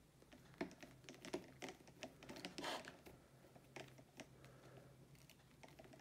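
Faint, irregular small clicks and scrapes of a screwdriver turning a doorbell transformer's terminal screw, fastening a low-voltage wire under it.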